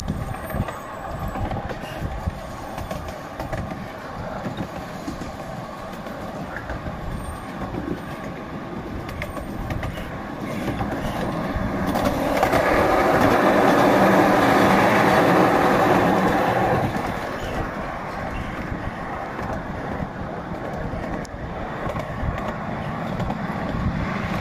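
Ride-on miniature railway train rolling along its track: a steady rumble and clatter of the small wheels on the rails, louder for about five seconds in the middle.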